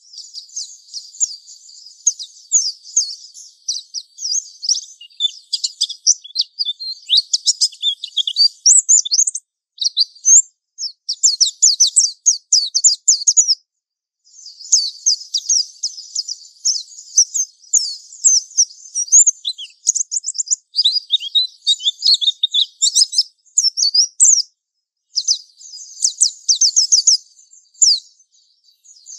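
Japanese white-eye (pleci) singing a long, rambling ngalas-style song of rapid, high-pitched twittering notes, with brief pauses three times.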